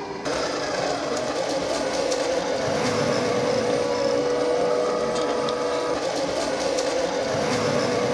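Electric motor and gearbox of a 1/10-scale RC rock crawler whining steadily as it crawls, with scattered light ticks.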